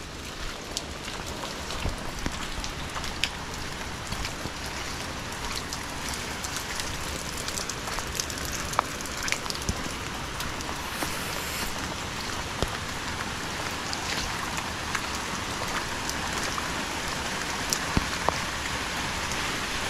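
Rain falling steadily, with many separate drops pattering close by.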